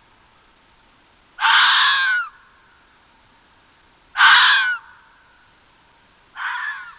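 A crow cawing: three harsh calls, each under a second long and about two and a half seconds apart, the last near the end.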